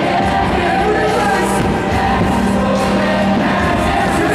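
Many voices singing together, a large choir and crowd, over amplified backing music that holds a long low note.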